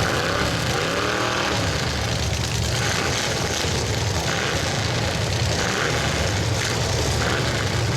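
Several demolition-derby truck engines running together in a steady loud drone, with revs rising and falling near the start.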